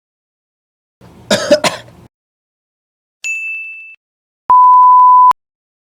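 A person coughs twice, sharply, about a second in. A short bell-like ding rings a little after three seconds. Near the end a steady high-pitched censor bleep sounds for just under a second and cuts off abruptly.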